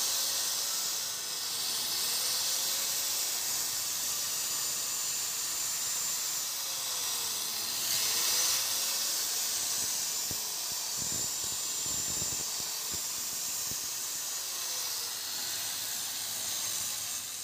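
Hitachi PDA-100D angle grinder running with no load: a steady high whine and hiss with a slight wavering in pitch, switched off at the very end. The motor has a newly fitted armature and bearings and runs freely, like new.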